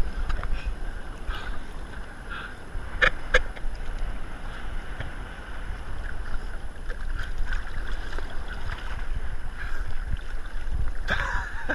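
Wind rumbling on the microphone and sea water sloshing around a camera held at the water's surface, with two sharp knocks about three seconds in.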